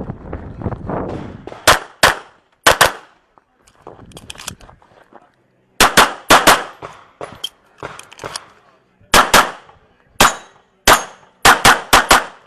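Handgun shots fired during an IPSC practical shooting stage, mostly as quick double-taps in bursts separated by pauses of a second or more. The bursts come faster and closer together near the end of the string.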